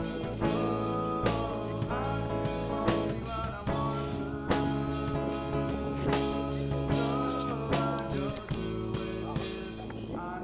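Background music: an indie rock song with a sung voice over guitar and a steady drum beat.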